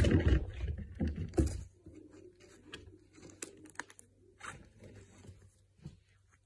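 A cat scrambles onto a curtain rail, with several heavy thumps in the first second and a half. Then come faint, scattered crinkling and crunching clicks as it bites at a feather wand toy.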